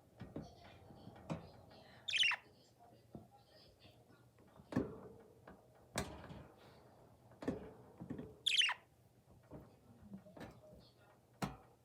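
Budgerigar giving two short, sharp high-pitched chirps, about two seconds and eight and a half seconds in, among several scattered clicks and knocks.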